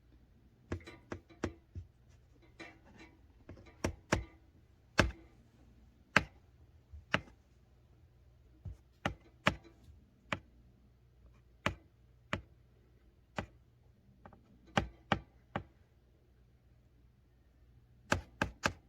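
Sharp, irregular taps and knocks, singly or in twos and threes, with a quick run of four near the end.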